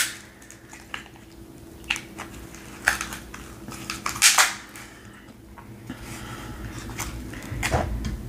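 Cooked king crab leg shells cracking and snapping as they are broken apart by hand: a handful of short, sharp cracks spread out, the loudest about four seconds in.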